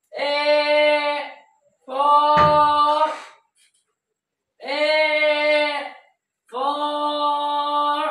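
A high voice sings one long, steady vowel four times, each held for about a second and a half with short gaps between. A short knock sounds during the second note.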